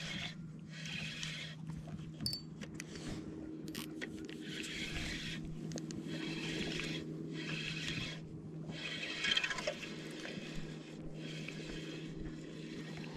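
Fishing reel being wound in repeated spells of about a second each, with short pauses between, as a hooked Australian bass is played in. A steady low hum runs underneath.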